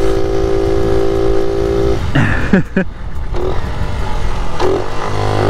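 1978 Honda Z50 Monkey's 49cc single-cylinder four-stroke engine running at steady high revs under the rider, its note dropping away about two seconds in and picking back up near the end, with wind rush over the microphone.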